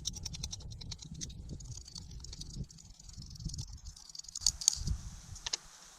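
Rapid light scraping ticks for about two and a half seconds, then a few sharp clicks, as soap is scraped and rubbed onto a skateboard truck's parts to stop the truck squeaking. A low wind rumble runs underneath.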